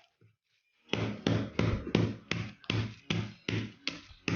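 Oreo biscuits in a folded plastic bag being beaten with a kitchen implement to crush them: a steady run of thuds, each with a crunch, about three blows a second. The beating starts about a second in.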